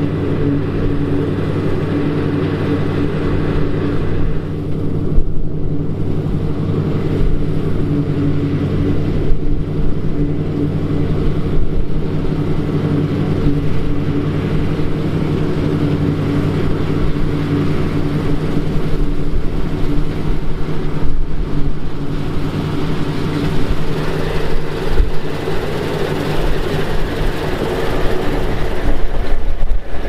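Claas Lexion combine harvester working in wheat: a loud, steady drone from its engine and threshing gear.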